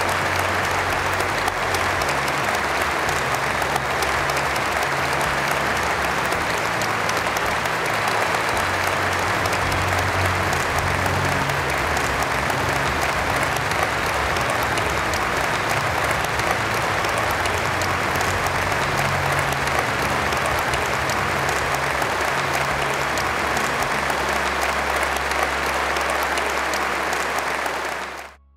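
Large audience applauding steadily, cutting off suddenly near the end.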